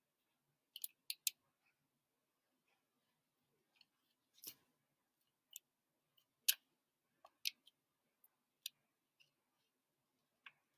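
Faint, irregular short scratches and clicks of handwriting on paper, slow and halting because it is done with the non-dominant left hand, as numbers are jotted down. The loudest stroke comes about six and a half seconds in.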